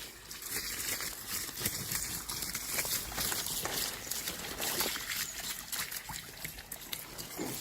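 Outdoor ambience: a steady high hiss with many small scattered clicks and ticks, and no clear single source.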